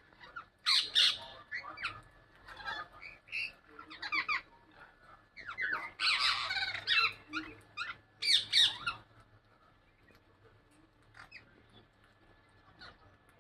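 Parrots squawking in short, irregular calls, with loud bursts about a second in, around six seconds and around eight to nine seconds, then only a few faint calls.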